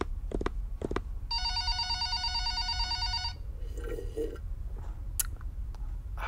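A few light finger taps on a wooden desk, then a telephone rings once with an electronic warbling ring lasting about two seconds. A short sip from a paper coffee cup comes about four seconds in.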